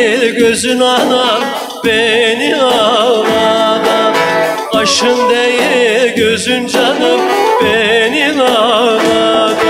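Male voice singing a Turkish folk song in long, ornamented phrases with heavy vibrato, over a played bağlama (saz). The phrases break briefly about every three seconds.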